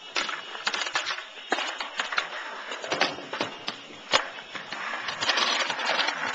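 Skateboard wheels rolling on concrete, with many sharp clacks of the board against the ground and the wooden box.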